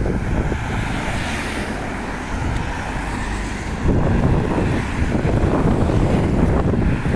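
Wind buffeting the microphone: a steady rushing noise that gets louder about four seconds in.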